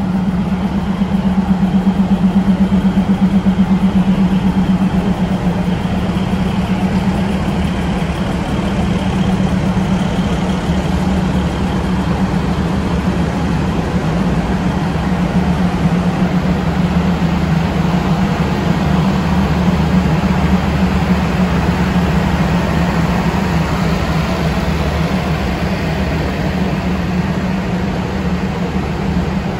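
A standing passenger train's diesel engines and air-conditioning plant running steadily: a continuous mechanical drone with a strong low hum, a little louder for the first few seconds.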